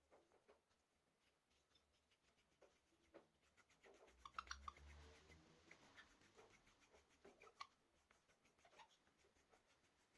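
Near silence, with faint scraping and rubbing and a few light taps, the loudest patch of scraping about four to five seconds in.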